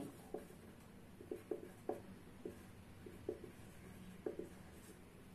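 Marker pen writing on paper: a handful of short, faint strokes as the words are written out.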